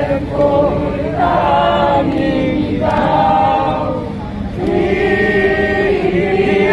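A crowd singing a slow song together, holding each note for a second or more, with a long held note in the second half.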